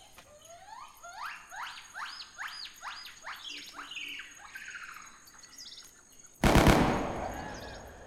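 Jungle ambience from a surround-sound demonstration track: a bird gives a run of rising whistled calls, about two a second, over a steady high insect buzz. A little over six seconds in, a sudden loud boom cuts in and dies away over about a second and a half.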